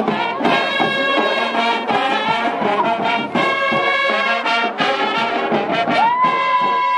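High school marching band playing, brass and woodwinds sounding held chords in phrases broken by short gaps. About six seconds in, one note slides up and is held.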